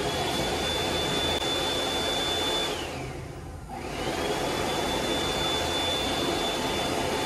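Wall-mounted electric hand dryer blowing, a steady rush of air with a high motor whine. It winds down and cuts out a little under three seconds in, then spins back up about a second later.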